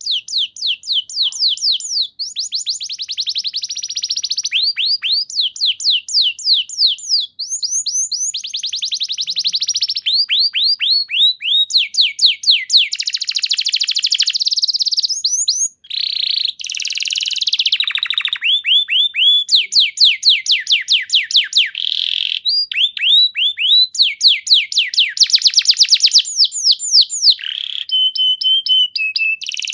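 Domestic canary singing a continuous song of fast trills: rapid runs of repeated downward-sweeping notes, changing from one trill type to the next every second or two. There is a brief held whistled note near the end.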